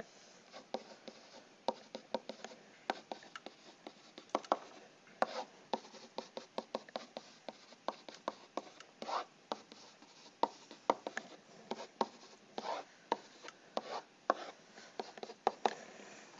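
Stylus writing on a tablet: irregular quick taps and clicks with a few short scratching strokes.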